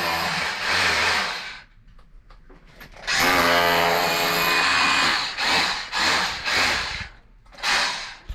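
Hilti cordless drill motor whining at speed in bursts: one long run that stops about a second and a half in, another from about three to five seconds, then several short blips, the last near the end.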